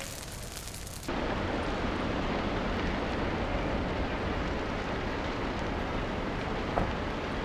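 Burning brush crackling for about a second, then a sudden cut to a louder, steady rushing noise of a wildfire burning up a brush-covered hillside, with wind in it.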